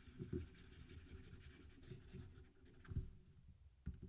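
Faint stylus scratching and tapping on a pen tablet while an equation is erased and rewritten, with a few sharper taps, the clearest about three seconds in.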